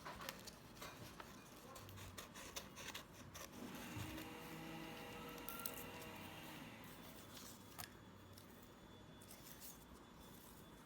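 Near silence with faint, scattered clicks and light handling noises of paper-craft work.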